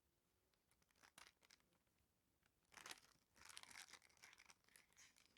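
Faint, intermittent rustling and crinkling of paper and packaging being handled, in short scattered bursts with a few light clicks, busiest in the second half.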